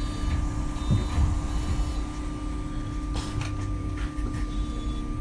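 MAN Lion's City Hybrid city bus running: a steady whine over a low rumble, with a few sharp rattles about three seconds in.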